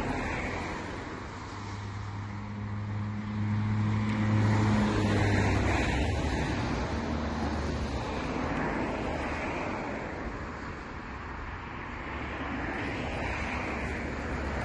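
Steady outdoor rushing noise with a motor vehicle's engine hum that swells about two seconds in and fades away again by about eight seconds.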